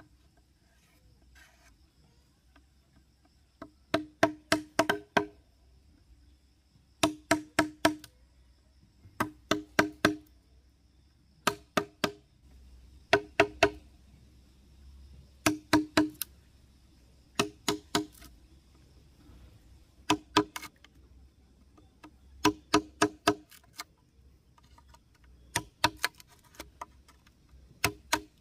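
A tool striking wood in quick bursts of three to five ringing blows, a burst about every two seconds, as in chopping or hammering.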